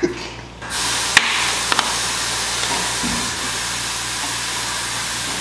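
A steady hiss like rushing air starts suddenly about a second in, with a couple of sharp clicks soon after.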